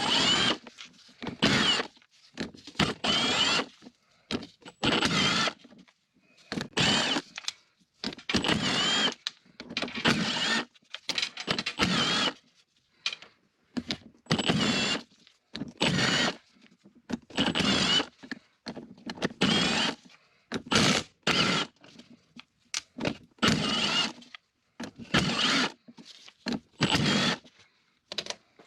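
A handheld power tool run in about twenty short bursts of a second or less, with quiet gaps between them, during removal of the camshafts from a Subaru EJ20 cylinder head.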